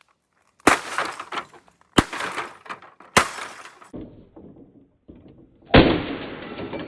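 Hammer blows smashing a television: three sharp strikes about a second apart, each followed by breaking glass and scattering debris, then a lighter knock and a heavier crash near the end that keeps rattling on.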